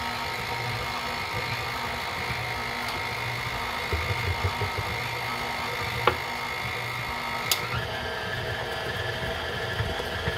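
Electric stand mixer running steadily, beating batter, with two sharp clicks a little past halfway and a drop in the pitch of its whine about three-quarters of the way through.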